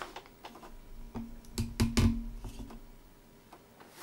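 Knocks and clicks as a Ninebot One S2 electric unicycle is handled, about a second in, with the loudest pair about two seconds in.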